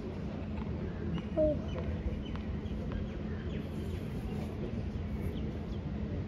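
Outdoor hard-court tennis ambience between points: a steady low background hum with faint knocks of a tennis ball being bounced before a serve. A single short, high call stands out about a second and a half in.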